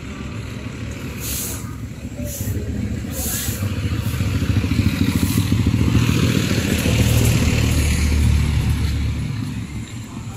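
A motorcycle engine runs with street traffic noise around it. It grows louder from about four seconds in and eases off near the end.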